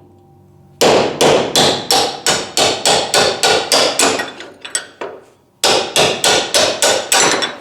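Hammer blows on steel, driving the roller detent rod out of a GM door hinge. There is a run of about a dozen ringing strikes, roughly three a second, then a short pause and a second run of about six.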